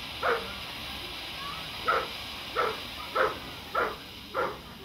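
A dog barking: one bark, a pause, then five more in a regular run about two thirds of a second apart. Under the barks runs the steady hiss of a conical firework fountain spraying sparks.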